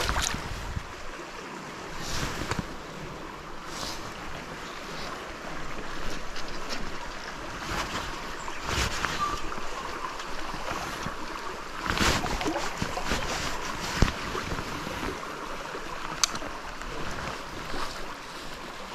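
Shallow stream water running over stones close to the microphone, a steady rushing, with a few short splashes and knocks.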